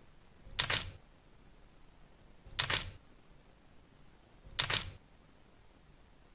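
Camera shutter firing in three short bursts of rapid clicks, about two seconds apart, with near quiet between.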